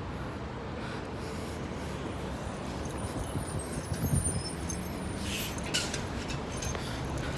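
Steady low rumble of road traffic, with a louder swell about four seconds in as a vehicle passes and two short hisses soon after.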